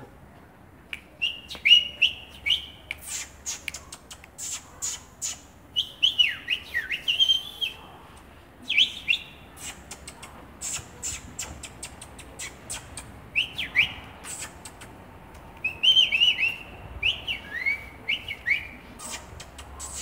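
European goldfinch calling: short bursts of quick twittering chirps with brief pauses between them.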